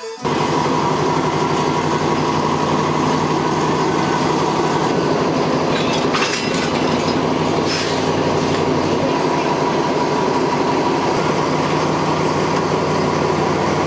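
A Thai State Railway diesel locomotive's engine running steadily beside the passenger carriages, with a constant hum and whine. There is a brief metallic knock about six seconds in.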